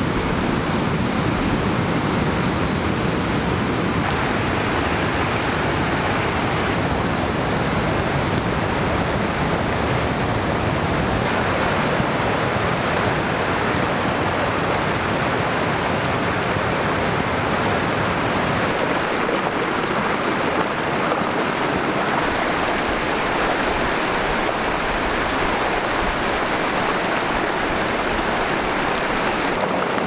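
Mountain river running over a rocky bed: a steady rush of flowing water, its tone shifting slightly a few times.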